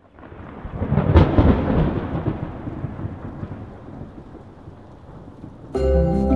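A deep, thunder-like rumble sound effect that swells to a peak about a second in and slowly dies away. Music with sustained pitched notes starts abruptly near the end.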